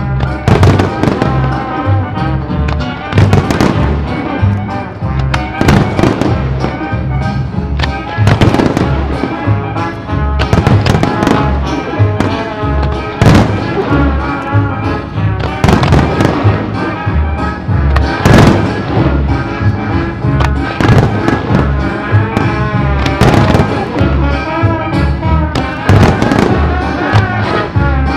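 Fireworks shells bursting with frequent sharp bangs throughout, over loud music with a steady beat.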